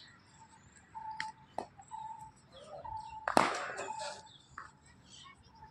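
A cricket bat strikes a cricket ball with one sharp crack about three and a half seconds in, with a fainter knock about two seconds before it. Birds chirp in short repeated calls throughout.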